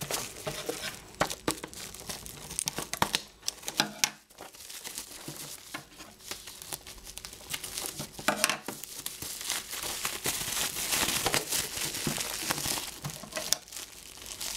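Bubble wrap crinkling and rustling as a package is unwrapped by hand, in irregular bursts of crackle with a few sharper clicks.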